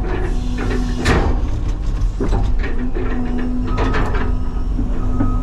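CAT 323 hydraulic excavator's diesel engine running with a steady hydraulic whine that drops out and returns, and several sharp clanks, the loudest about a second in.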